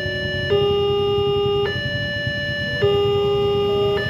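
Electronic level-crossing warning alarm sounding, alternating between two pitched tones that switch about once a second: the signal that a train is approaching and the crossing is closed.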